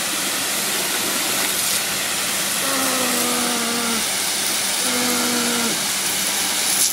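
Pressure washer jet spraying with a steady, loud hiss. Over it come two drawn-out cries from the person being sprayed: a long one about three seconds in and a shorter one about five seconds in.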